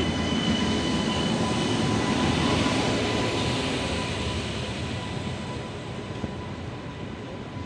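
Train running along the rails. Its noise is loudest in the first few seconds, then grows gradually quieter as it moves away.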